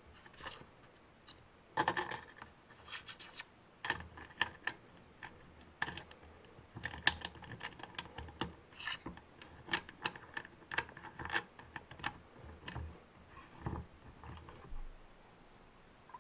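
Small irregular clicks and scrapes as hands assemble a rod-wrapping thread-spool holder: a plastic-flanged spool, spring, washer and wing nut fitted onto a bolt over a wooden bench board.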